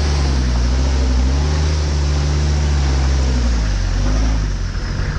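Off-road trail rig's engine running steadily as it crawls, easing off and changing pitch about four seconds in, with a steady hiss over it.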